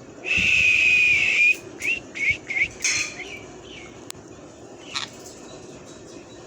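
Pet Indian ringneck parrot whistling one long, level note, then a quick run of short rising chirps, and one more short call near the end.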